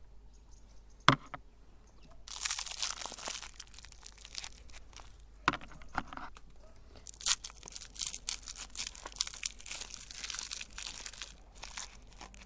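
Hard-candy lollipops being crushed in a meat grinder: a sharp crack about a second in, then irregular crunching and cracking broken by several sharper snaps.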